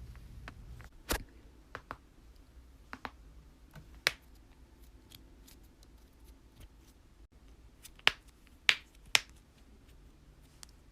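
Joints cracking: a scattering of sharp pops, some faint and some loud, the loudest three coming about half a second apart near the end.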